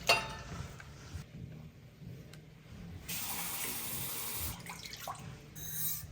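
A sharp knock right at the start, then liquid pouring in a steady stream for about a second and a half, as pickling-brine liquid goes into a saucepan.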